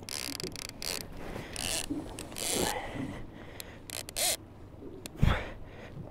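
Fishing reel being cranked against a heavy fish, its gears and ratchet clicking in irregular bursts, with one sharp knock a little after five seconds in.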